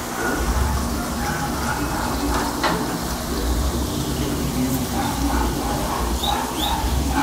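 Steady water noise from aquarium filtration and bubbling, with a low rumble underneath. A single click comes about two and a half seconds in, and two short high chirps near the end.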